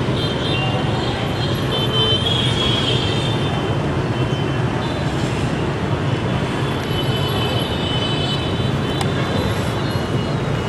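Steady street traffic noise, a continuous rumble of passing vehicles, with faint high tones now and then.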